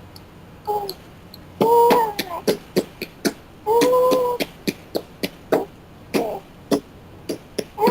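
A woman making playful mouth sounds for a baby: sharp tongue clicks and pops between short, high-pitched sung 'ooh' notes, one held longer about four seconds in.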